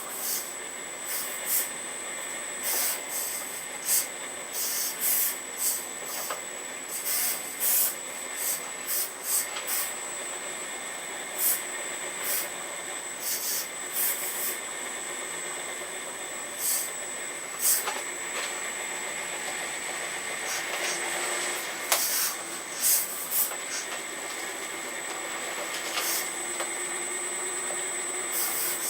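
Earth Digger 4200XL RC hydraulic excavator running, its hydraulic pump giving a steady high whine, broken by many short, irregular hissing bursts as the machine works.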